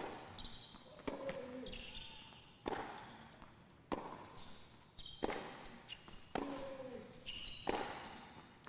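Tennis ball struck by rackets in an alternating baseline rally: sharp pops about every 1.2 seconds, seven strokes in all.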